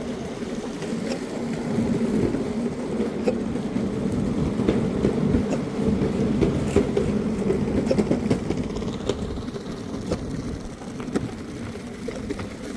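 Steady rumble of a moving vehicle, with a few scattered light clicks.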